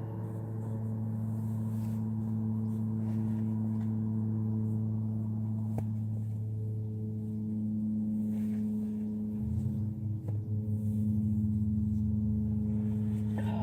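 A steady low hum, one deep tone with a stack of overtones, holding level throughout and wavering briefly for a few seconds about three-quarters of the way in.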